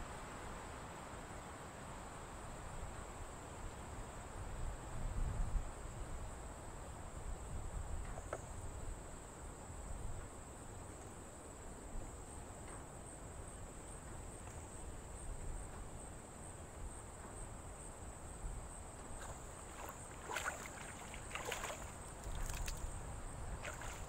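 Insects buzzing steadily in one high band throughout. Near the end comes a cluster of short splashes as hands scoop river water over fish on a plate.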